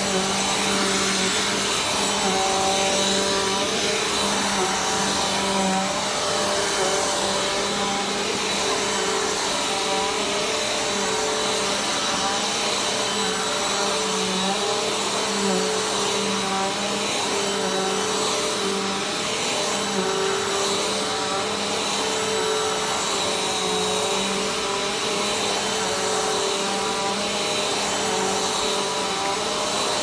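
Upright vacuum cleaner running steadily as it is pushed over carpet, its motor hum wavering slightly in pitch now and then as the head moves.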